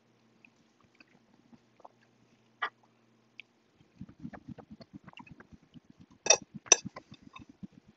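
Close-up chewing of a mouthful of food, a quick run of wet mouth noises starting about halfway through, with two sharp clicks of a metal fork against the plate shortly after.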